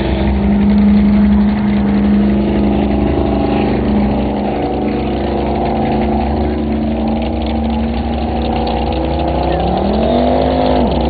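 Jet boat's twin-turbo big-block Chevy V8 running at a steady high speed, then revving briefly up and dropping back down near the end.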